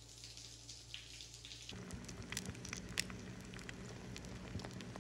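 Shower water running with a steady hiss, then, after a cut less than two seconds in, eggs frying in a pan, sizzling with scattered crackles and pops.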